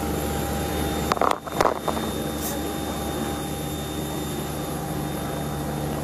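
Steady engine drone with several held tones, broken about a second in by a brief loud crackle and dropout of the phone's microphone being handled.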